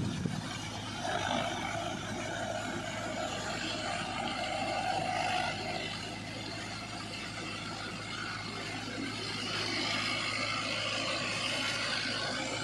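Mahindra Arjun 555 tractor's four-cylinder diesel engine running steadily under load, driving a rotavator that churns through flooded paddy mud.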